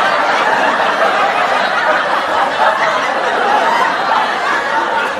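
Several people laughing and snickering in a dense, steady mass.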